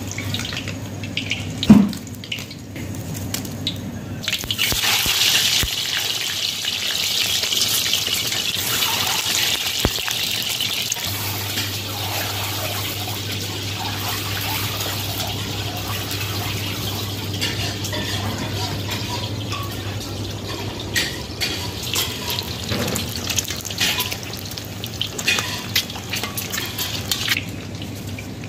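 Peeled boiled eggs deep-frying in hot oil in a steel kadhai: a steady sizzling hiss that swells about four to five seconds in. There is a sharp metal clank near the start, and light clinks of a slotted spoon against steel toward the end.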